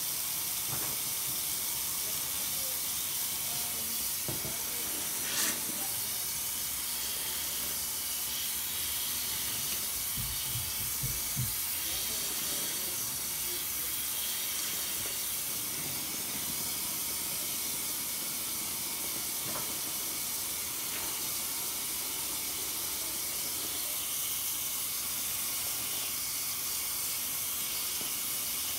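Tap water running steadily into a sink full of soapy suds, a continuous hiss. A soaked sponge is squeezed and rinsed under the stream, with a few soft wet squishes, the clearest about 5 s and 10–11 s in.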